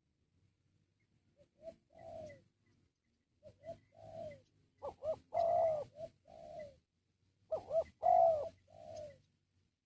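Spotted dove (tekukur) cooing: several phrases, each of two quick short notes followed by a longer drawn-out note, the loudest about halfway through and near the end.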